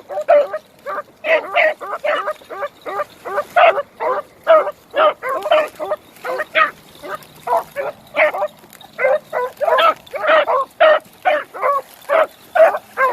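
Beagles barking on a rabbit's trail, short barks following each other quickly at about three a second, as hounds give tongue while running the track.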